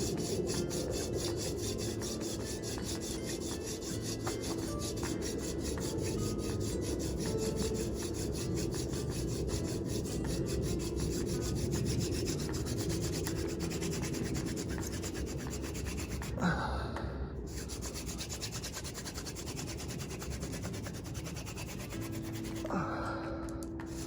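Wooden hand-drill spindle spun back and forth between the palms in a clay-dressed socket of a wet hearth board: a steady grinding rasp. It breaks off briefly twice, about two-thirds of the way through and near the end.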